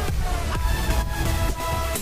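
Electronic dance music with a steady kick drum beating about twice a second under sustained synth tones.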